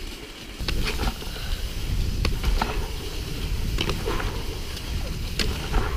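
Wind rushing over the microphone and cross-country skis hissing over packed snow on a fast downhill run, growing louder about half a second in. Scattered sharp clicks come from the skis chattering on the crusty surface.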